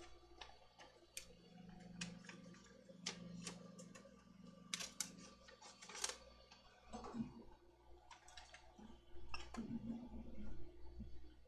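Small objects being handled on a cluttered workbench: scattered light clicks and taps, with a faint low hum for a few seconds early on.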